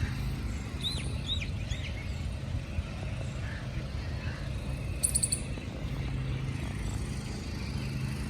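Wild birds chirping: three short hooked chirps about a second in, then a quick high trill about five seconds in. A steady low rumble, like distant traffic, runs underneath.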